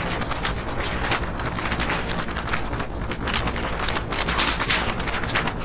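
Passenger train in motion heard on board: a steady low rumble under dense rattling clatter from the running gear and track, with rushing air.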